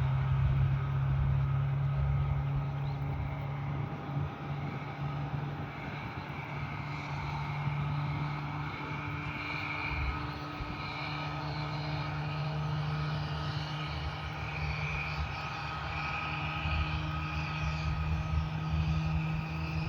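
Aircraft engines running steadily: a low hum with higher whining tones that rise slowly in pitch, as at a gradual increase in power.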